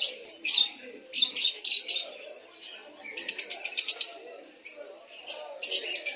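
Many caged birds chirping and trilling in short, rapid bursts, with a faint low murmur underneath.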